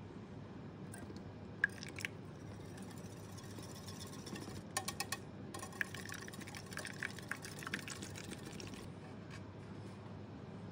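Milk pouring from a jug into beaten eggs in a glass bowl while a wire whisk stirs, the whisk clinking lightly against the glass in scattered clicks.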